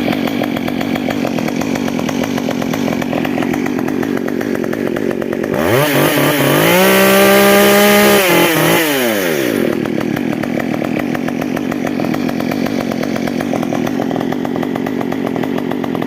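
Stihl MS 194T top-handle chainsaw's small two-stroke engine idling, then revved once to high speed about six seconds in, held briefly and let drop back to idle.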